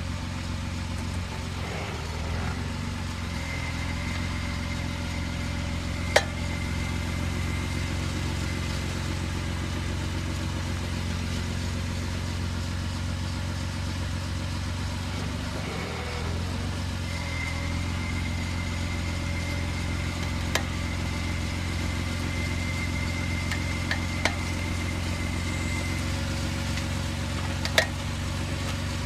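Engine idling steadily, with a few sharp pops over the run, the loudest about six seconds in. A faint high whine comes and goes over the hum.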